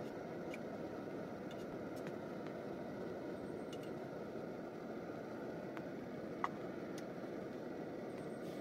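A few light clicks of a spoon against a metal mess tin as food is eaten from it. The sharpest is a brief ringing clink about six and a half seconds in. Under them runs a steady, low rushing noise.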